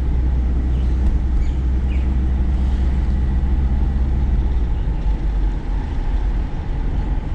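Steady low rumble of engine and road noise heard from inside a car while driving.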